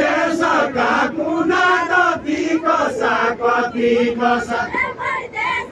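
A group of men chanting a folk-song refrain together in rhythmic syllables, the same short line sung over and over.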